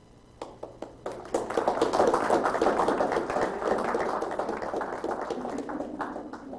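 Audience applauding: a few scattered claps, then full applause from about a second in, easing off near the end.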